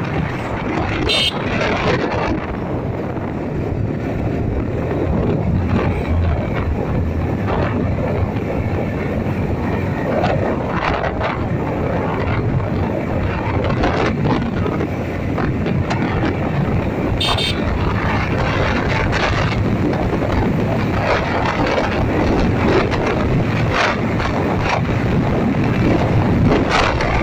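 Wind buffeting the microphone of a TVS Apache RTR 180 motorcycle ridden fast, with the bike's single-cylinder engine running underneath as a steady rush. A brief high-pitched sound cuts through twice, about a second in and again some 17 seconds in.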